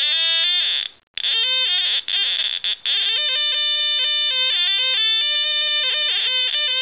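Electronic tone oscillator on a Tandy/Radio Shack Science Fair electronic kit, playing a buzzy tone through the kit's small speaker. Its pitch slides and jumps about as the probes pressed against the palm and fingers pass current through the skin, which sets the pitch. The tone cuts out briefly about a second in and again near three seconds.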